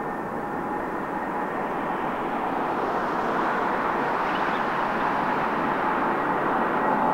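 Airbus A320-232's IAE V2500 turbofan engines running, a steady jet rumble with a held whine on top, growing slowly louder.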